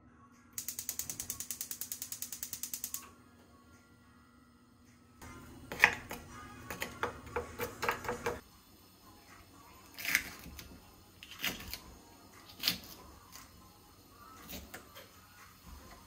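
Gas hob's igniter clicking rapidly, about ten clicks a second for two and a half seconds, as a burner is lit. Then a wooden spatula stirs and knocks in a frying pan. Later come scattered knocks of a knife chopping on a wooden cutting board.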